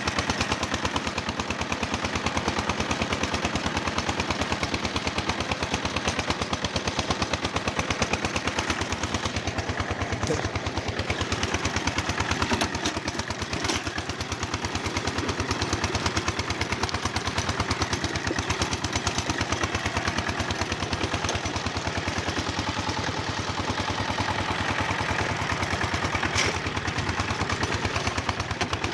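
Tractor engine running steadily throughout, with a rapid, even knocking beat.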